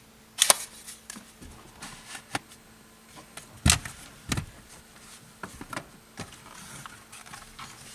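Plastic clicks and knocks from handling a truck's loose lower dash panel while working the OBD port and a small LED light out of it. A scattered handful of sharp clicks, the loudest about half a second in and two more in the middle.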